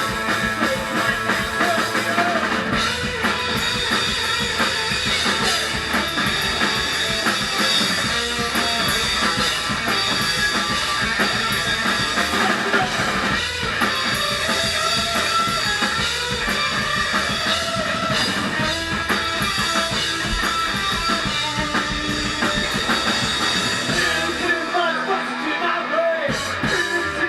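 Garage punk band playing live: loud electric guitars over a driving drum kit and bass. About twenty-four seconds in, the drums and bass drop out, leaving the guitars.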